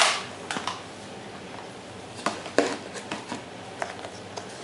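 Scattered light clicks and rustles of a smartphone's box packaging and accessories being handled and lifted out.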